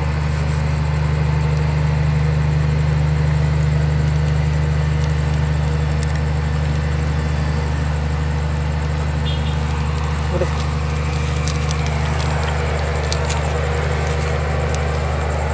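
A steady low mechanical hum at an even level, with a few faint clicks about ten seconds in and near the end.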